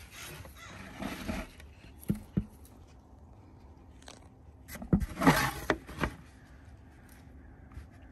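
Corn tassels rustling and scraping as they are shaken and brushed over a terracotta saucer to drop their pollen. There are two light taps a little after two seconds and a louder rustle at about five seconds.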